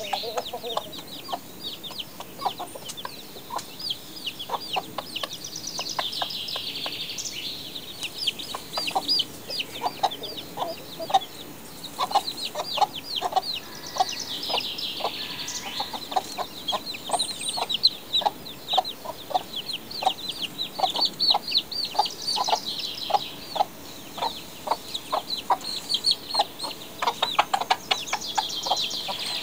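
A chick peeping over and over in short, high, falling cheeps, mixed with short low clucks from an adult chicken.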